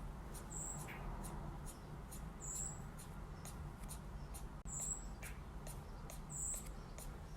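A small bird giving short, faint, very high-pitched cheeps, four of them about two seconds apart.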